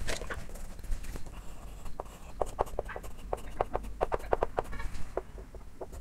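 Chalk tapping and scraping on a chalkboard as lines and lettering are drawn: a quick run of short taps from about two seconds in, with a brief squeak near the end.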